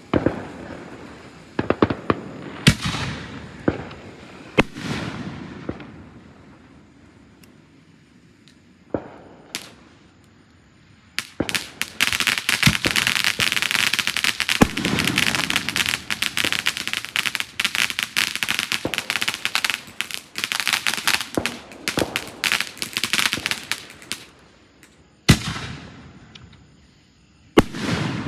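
Fireworks going off: several separate bangs, each with a trailing decay, then a long stretch of rapid crackling like a firecracker string, then two more bangs near the end.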